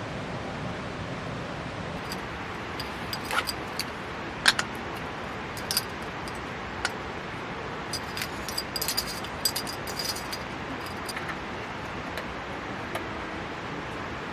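Steady hiss of heavy rain, with a scatter of light clicks and metallic clinks, bunched most densely a little past the middle.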